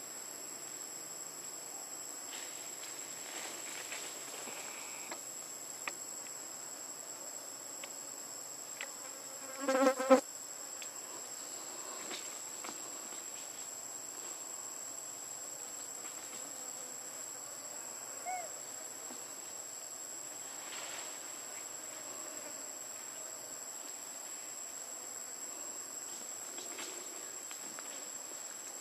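Steady high-pitched insect chorus, one unbroken shrill note over a faint hiss. About ten seconds in, a short pitched animal call of about half a second stands out as the loudest sound.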